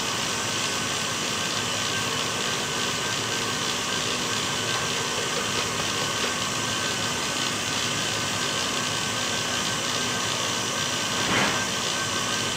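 KitchenAid Heavy Duty stand mixer running steadily at speed, its wire whisk beating egg whites with hot sugar syrup into an Italian meringue for macarons until it stiffens. A brief clatter about a second before the end.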